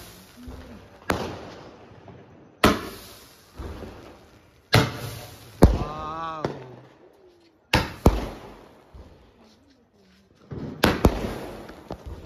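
Aerial fireworks bursting overhead: a string of about ten sharp bangs, irregularly spaced a second or two apart, some in quick pairs, each dying away in an echo.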